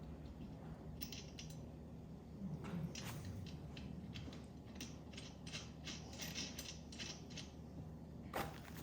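A run of light metallic clicks and clinks from a wrench working on the cart's bolts and nuts as they are fitted and tightened.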